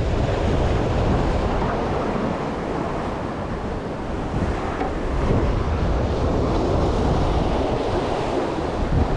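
Wind buffeting the microphone over the wash of sea waves, a steady rushing noise without any distinct events.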